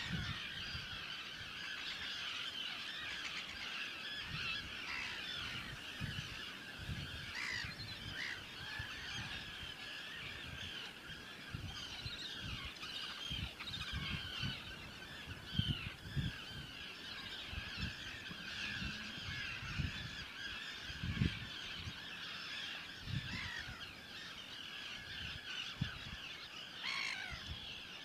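A large flock of waterbirds calling all at once, a constant overlapping chatter of many voices. Irregular low rumbles of wind buffeting the microphone come and go, the strongest about halfway through and again a little later.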